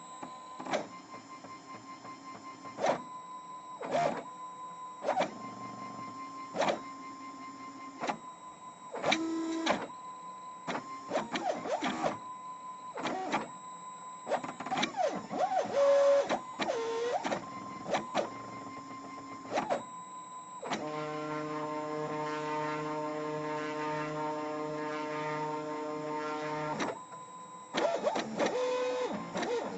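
Stepper motors of a CNC drawing machine whining through a series of short moves, the pitch gliding up and down as the moves speed up and slow down, with clicks between them. About two-thirds of the way in, one steady whine is held for about six seconds during a longer move.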